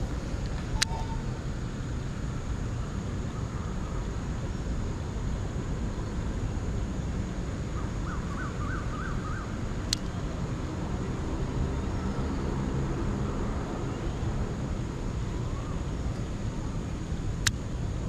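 Steady low outdoor rumble, like distant traffic, with a few sharp clicks and a quick run of about six rising chirps around eight to nine seconds in.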